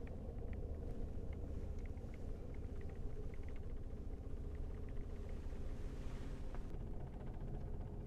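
Steady low rumble of storm wind against the parked Jeep, heard from inside the cabin, with faint scattered ticks of sleet and rain hitting the windows.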